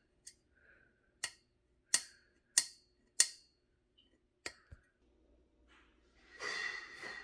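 A string of sharp clicks, about one every half second to second, then a second of rustling and scraping near the end, as flat-pack desk parts and their packaging are handled.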